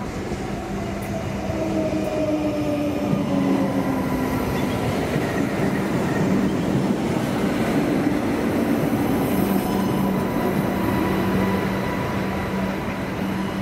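Adelaide 3000-class diesel railcar running past at close range and on along the platform: a steady engine hum, pitched whines that drop in pitch early on, and a rush of wheels on rail that swells about two seconds in.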